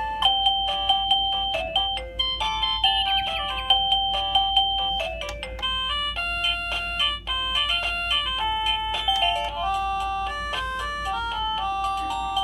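Liztek wireless doorbell receiver playing its electronic chime melodies, one short tune after another. There is a brief break about five seconds in and another a little past seven seconds, where one tune ends and the next begins.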